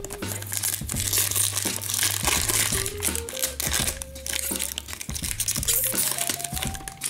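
Foil wrapper of a hockey card pack crinkling as it is torn open and peeled back by hand, over background music with a steady bass line.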